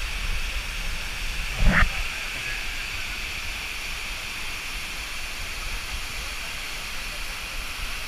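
Heavy waterfall in flood, with muddy water pouring and rushing as a steady, even roar. A short loud sound cuts through it once, just under two seconds in.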